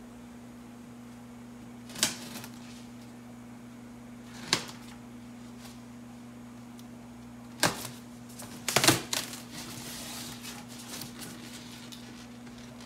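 A shipping box being opened and handled: a few sharp knocks and clicks spaced seconds apart, a cluster of them about nine seconds in followed by light rustling, over a steady low electrical hum.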